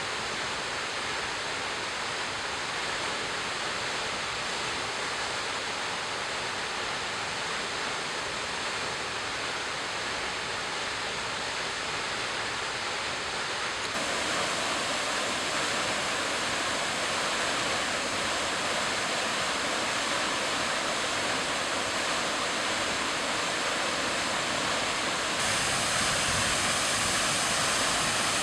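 Daisen Falls waterfall pouring down, a steady rushing roar of falling water. It gets louder and brighter about halfway through and again near the end.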